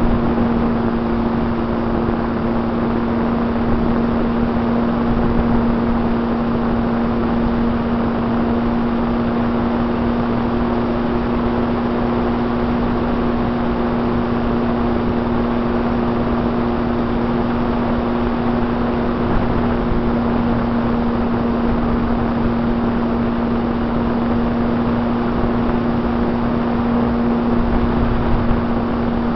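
RC plane's motor and propeller heard from the plane's onboard camera: a steady hum holding one pitch throughout, over a loud rush of air across the airframe.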